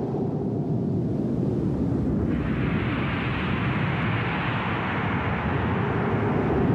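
Steady low rumbling noise, with a rushing hiss joining about two seconds in and holding steady.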